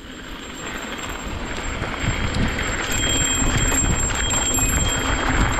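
Mountain bike riding a dirt trail and picking up speed: wind and tyre noise building steadily louder, with rapid ticking from the rear hub as it coasts.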